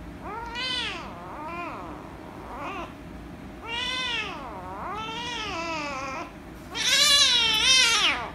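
Young ginger-and-white kitten meowing repeatedly while being stroked on the head, about six or seven meows that rise and fall in pitch, the last one longest and loudest near the end; the owner takes the meowing for anger at being petted.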